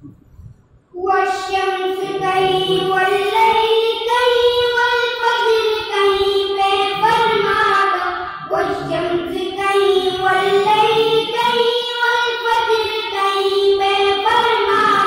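Boys singing a naat, an Islamic devotional song, in long drawn-out sung lines; the singing starts about a second in.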